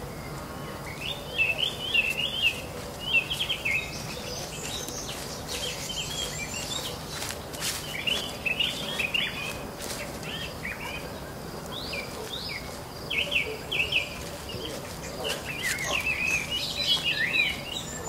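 Songbirds singing in quick, chirpy phrases, several bouts a few seconds apart, over a steady background hiss.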